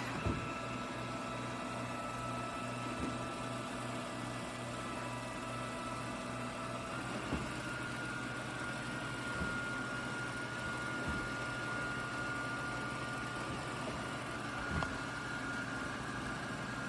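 BPMIO robot vacuum running: a steady motor hum with a high whine that steps up slightly in pitch about seven seconds in, and a few light knocks.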